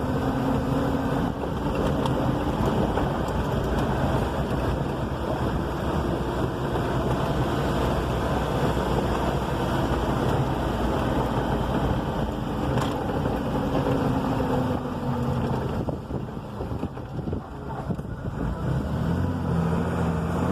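Vehicle engine running under load on a steep dirt-road climb, mixed with wind buffeting the microphone. The engine note falls about two-thirds of the way through, and a lower steady engine note takes over near the end.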